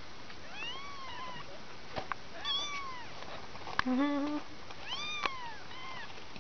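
Two-week-old kittens mewing again and again: short, thin, high-pitched mews, each rising and falling. About four seconds in there is a brief lower, steadier voice sound, and a few light taps.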